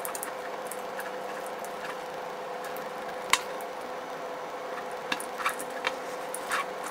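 Light clicks and taps of small wire connectors and parts being handled while ESC power wires are plugged into a quadcopter power board. One sharp click comes about a third of the way in and several more near the end, over a steady hiss with a faint hum.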